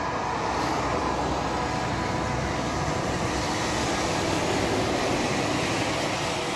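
A city bus driving past on a wet road: its engine and tyre hiss swell and hold, then ease off near the end. Faint steady tones run underneath.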